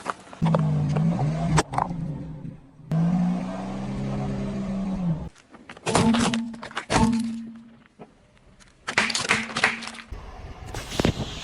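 Car engine running slowly while its tyres roll over and crush objects, with a string of sharp cracks and crunches. The sound comes in several short separate takes.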